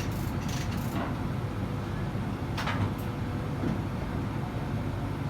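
Crane engine running steadily with a low rumble, with two sharp clicks about two and a half and three seconds in.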